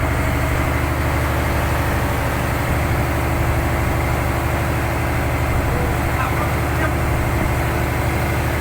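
Fishing boat's engine running at a steady speed, a constant low drone with no change in pitch.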